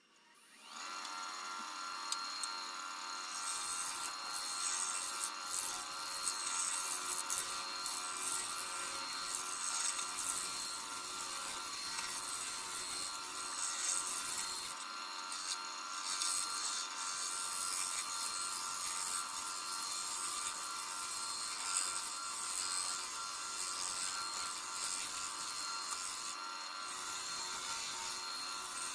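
Wood lathe starting up about a second in and running steadily with a humming motor tone. From a few seconds in, a tool works the spinning black walnut sphere with a continuous scraping hiss that pauses briefly twice.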